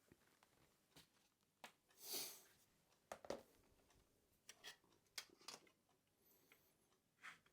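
Faint handling sounds while the laptop's old hard drive is taken out: scattered small clicks and light knocks, with a brief rustle about two seconds in.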